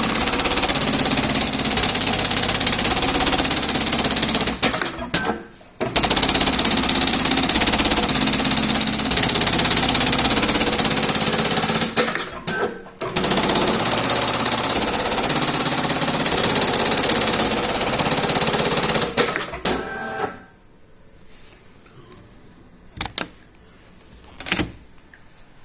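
Voltex machine's motor running loudly and steadily, with two brief stops, then shutting off about 20 seconds in; a few sharp clicks follow.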